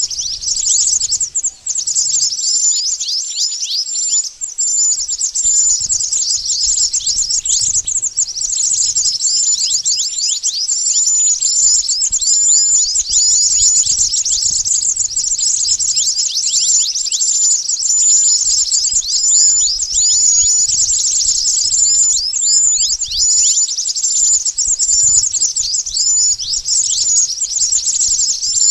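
Pied bushchat (mantenan) lure call: dense, continuous high-pitched twittering made of rapid, quick falling chirps, with no pause.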